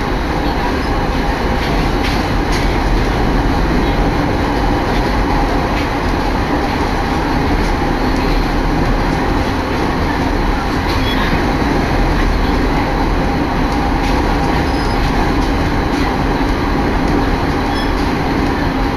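Electric train heard from inside the carriage while running: a steady rumble and rush of wheels on rails with a faint steady hum and a few faint clicks.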